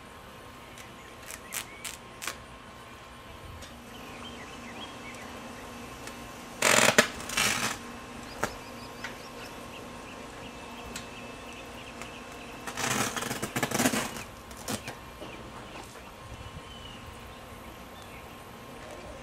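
Honey bees buzzing steadily around a hive in a trailer floor, with a few sharp clicks and two loud noisy bursts of about a second each, one about a third of the way in and one past the middle.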